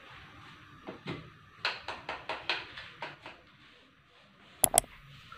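Faint, irregular light knocks and taps of kitchen things being handled, then a moment of silence and two sharp clicks close together near the end.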